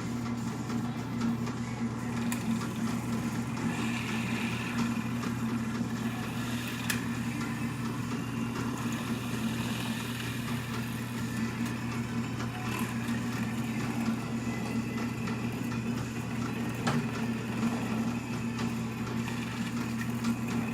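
Electric motor running steadily: a constant low hum with a fainter whine above it, without a break or change in speed.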